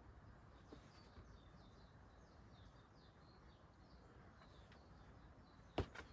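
Near silence, with a bird's faint short high chirps repeating through most of it and one sharp tap near the end.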